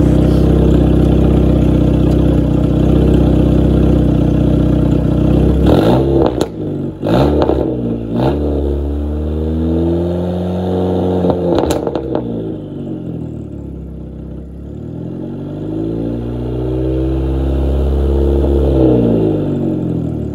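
Volkswagen Golf Mk5 GTI's 2.0 TFSI turbocharged four-cylinder, converted to a big turbo, heard at the twin tailpipes: idling steadily, then revved up and down several times from about six seconds in, with a few sharp clattering cracks among the first blips. The revs settle, then rise and fall once more near the end.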